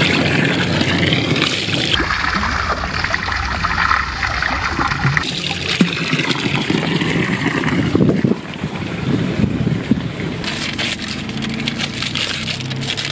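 Water from a fountain spout pouring and splashing into a stone trough, with a hand swishing through the water. About eight seconds in it cuts off abruptly to a quieter scene, with crinkling of plastic ice-lolly wrappers near the end.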